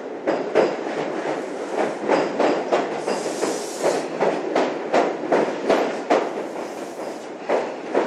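Train running past close by, its wheels clacking rhythmically over the rail joints, about two to three clacks a second, with a brief high hiss about three seconds in.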